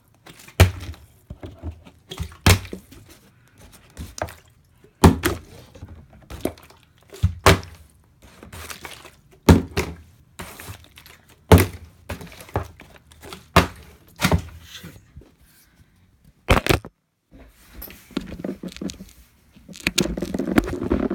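Plastic water bottle flipped over and over, landing on a tabletop with a thunk about every two seconds.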